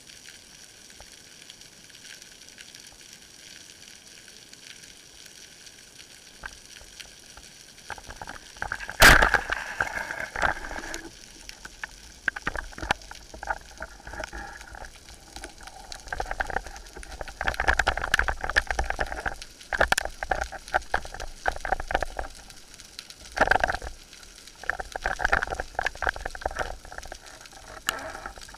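Underwater ambience with faint crackling. About nine seconds in, one sharp loud crack as a speargun fires its shaft. After it, repeated swells of rushing, bubbling water noise run to the end.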